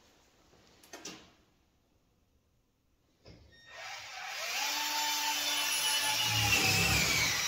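A power tool starts up about three seconds in and runs steadily with a whine, after a single click and a near-silent pause.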